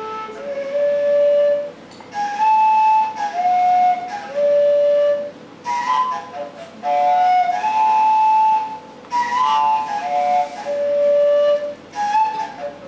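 A solo flute-type wind instrument playing a slow melody of clear, held notes that step up and down, in short phrases with brief pauses between them.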